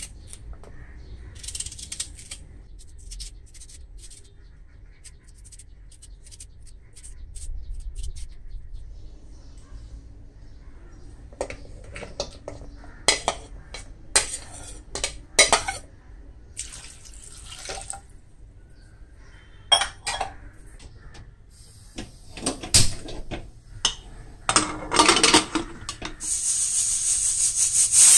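Knife cutting raw mango over a ceramic plate, then a metal spoon scraping and clattering the pieces off the plate into an aluminium pressure cooker. Near the end a Hawkins pressure cooker lets off steam through its weight valve in a loud, building hiss: the whistle that shows it has come up to pressure.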